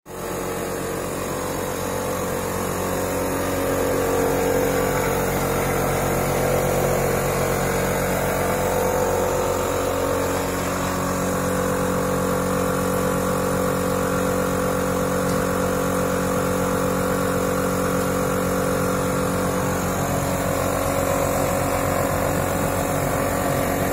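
Ozonia CFV-1 ozone generator running with a steady machine hum made of several constant tones. The hum changes about ten seconds in.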